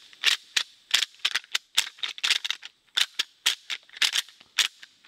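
Bone Collector Bag O Bones rattle bag shaken and worked between the hands: quick, irregular clicking and clattering of the pieces inside, in short bunched runs. This is deer rattling, imitating two whitetail bucks clashing antlers in a fight.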